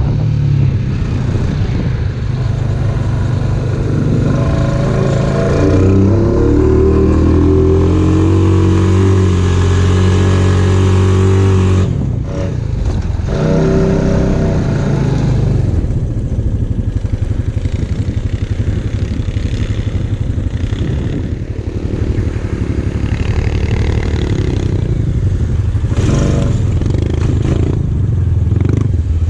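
Off-road vehicle engine running while riding, rising in pitch for several seconds and then dropping off sharply about twelve seconds in as the throttle is let off, then running on steadily with rattling from the machine.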